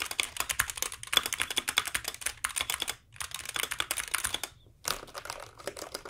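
Fast typing on a SteelSeries Apex Pro keyboard with OmniPoint switches: a rapid, continuous stream of key clacks, broken by a few short pauses.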